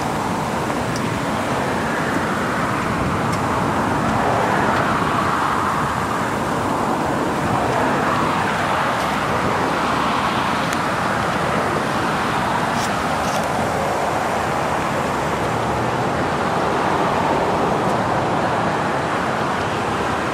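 Steady road traffic noise from cars passing on the street, swelling and easing a few times as vehicles go by.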